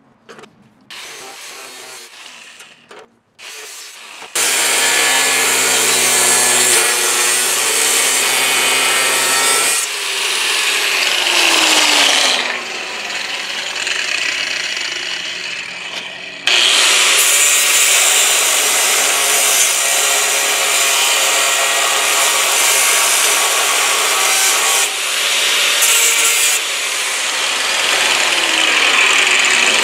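Cutoff wheel cutting through the spot welds in the sheet steel of a 1935 Ford truck firewall. After a few light knocks, a loud continuous grinding starts about four seconds in, eases for a few seconds in the middle, then picks up again.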